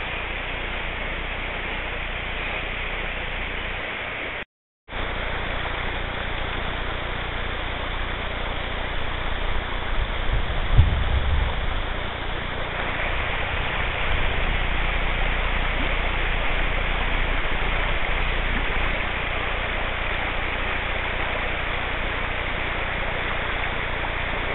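Shallow river water rushing over a riffle, a steady hiss, with wind buffeting the microphone in low rumbling gusts about ten seconds in and again a few seconds later. The sound drops out completely for a split second a little over four seconds in.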